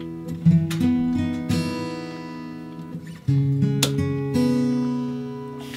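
Background acoustic guitar music, plucked and strummed chords.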